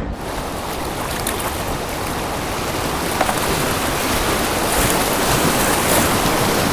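Whitewater rushing over a river block-ramp weir on the Isar, a dense, steady rush of water that grows steadily louder as a kayak nears and runs the drop.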